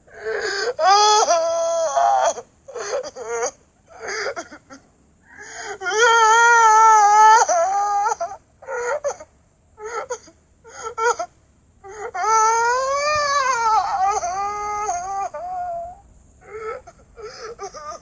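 A cartoon character's high-pitched voice crying: three long wails, one with a wavering pitch and one that rises and falls, broken up by short sobs in between.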